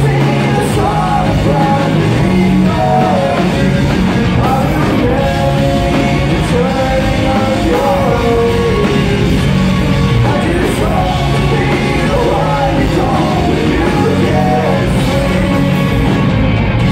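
Rock band playing live through a concert PA: electric guitars, bass guitar and a drum kit, loud and steady, heard from the audience.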